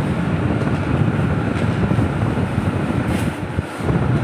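Tower air cooler's fan blowing, its airflow buffeting the microphone in a steady low rumble that dips briefly near the end.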